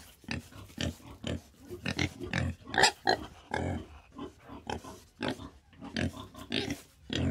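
Several boars grunting as they root and feed: short, irregular grunts about twice a second, the loudest about three seconds in.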